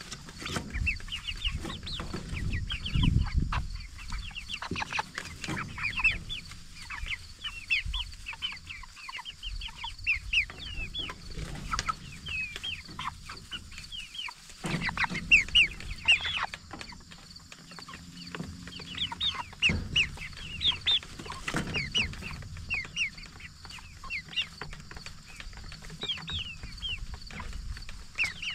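A flock of Cornish Cross broiler chickens peeping and clucking, with many short, high calls overlapping several times a second. Occasional low thumps and rumbles come in, loudest a few seconds in and again around the middle.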